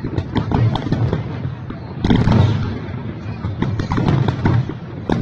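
Aerial fireworks going off: a quick run of sharp bangs and crackles, with a heavier boom about two seconds in.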